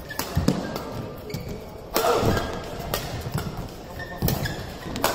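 Badminton doubles rally in a large hall: sharp racket strikes on the shuttlecock about once a second, opening with a jump smash, with shoes thudding and squeaking on the court.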